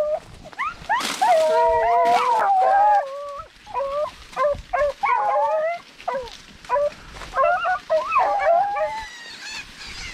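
Rabbit-hunting dogs baying and howling on the chase of a rabbit, several voices overlapping about a second in, then single calls through the rest.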